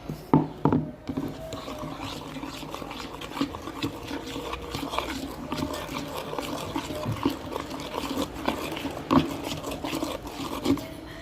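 Homemade slime being stirred and worked with borax-water activator just poured in: continuous wet, sticky squelching and smacking. Two sharp knocks come about half a second in.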